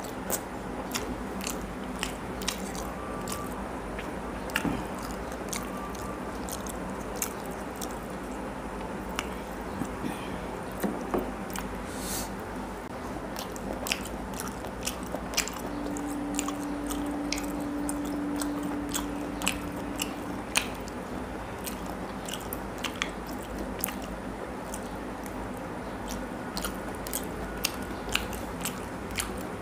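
Close-miked eating of rice and curry by hand: steady chewing and biting, with many short wet mouth clicks and smacks throughout. A steady low hum lasts about five seconds around the middle.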